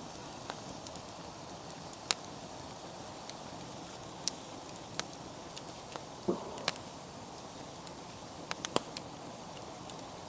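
Wood campfire crackling: scattered sharp pops, a few in quick succession near the end, over a steady faint hiss.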